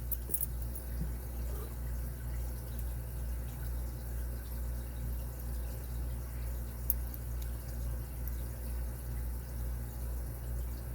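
Lock pick and tension wrench working the pins of a six-pin padlock: faint scattered ticks, then one sharper click about seven seconds in, over a steady low hum.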